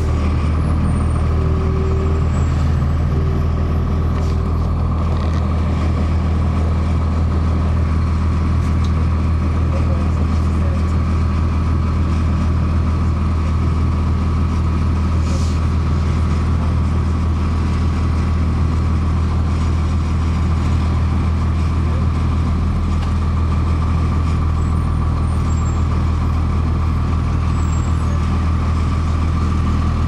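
The Cummins ISC inline-six diesel of a 2002 Blue Bird CS transit bus, running at one steady engine speed, heard from inside the passenger cabin. A steady higher whine sits over the low engine drone.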